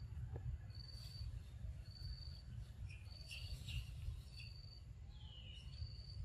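A cricket chirping: a high, even note repeating a little more than once a second. Under it runs a low steady rumble, and a few short bird calls come in near the middle, including one falling call.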